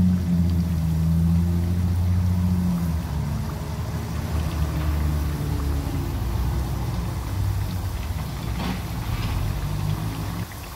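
Potato slices deep-frying in a wok of oil, sizzling, under a louder low engine-like rumble with shifting tones. The rumble drops away near the end.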